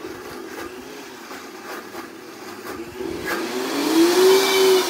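Countertop blender motor churning a thick pesto sauce, first at a steady lower speed. About three seconds in it speeds up and gets much louder, its pitch rising, and it starts to drop again near the end.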